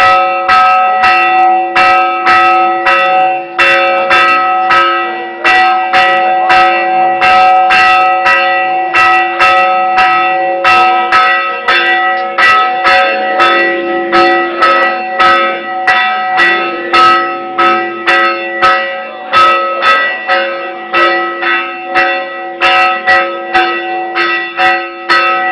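Church bells rung fast and loud, about three strikes a second, several bells of different pitch ringing on together: the festive midnight ringing of Orthodox Easter.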